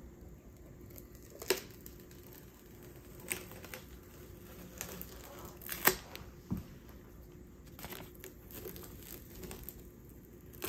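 Protective plastic film being peeled slowly off an amplifier's acrylic top panel: a quiet crinkling tear broken by scattered sharp crackles, the loudest about six seconds in.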